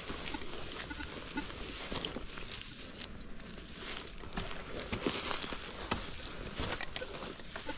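Footsteps on dry, stony ground, with scattered scrapes and rustles.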